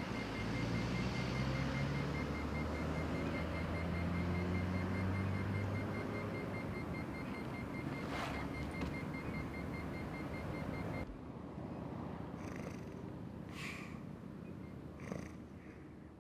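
Road traffic by a roadside, with a passing vehicle's engine drone fading over the first several seconds. About two thirds of the way through, the sound cuts to a quieter bed with a few short soft noises a second or so apart.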